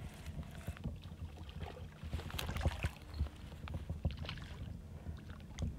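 Irregular clicks, knocks and rustling from a fishing rod and reel being handled and wound while a fish is reeled in, over a steady low rumble.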